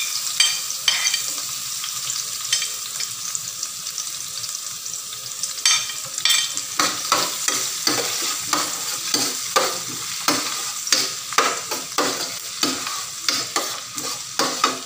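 Diced onions sizzling in butter and oil in a stainless steel frying pan, being sautéed until fragrant. About six seconds in, a spatula starts stirring them, scraping and knocking against the pan in quick repeated strokes over the steady sizzle.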